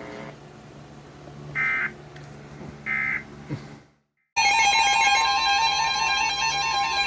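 Faint broadcast audio cuts to dead silence for about half a second, then a loud, steady Emergency Alert System attention signal sounds: a held two-tone alarm with other tones layered over it, heralding a new weather warning.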